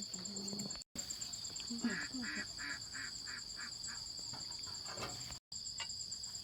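Steady high-pitched drone of crickets or other insects, with domestic waterfowl honking a quick series of about eight calls around two seconds in. The sound cuts out completely twice for an instant.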